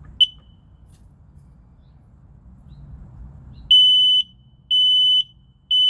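Kidde P3010CU smoke and carbon monoxide alarm running its self-test: one short high chirp, a few seconds of quiet, then three loud, high-pitched beeps about a second apart, the start of its fire-alarm pattern.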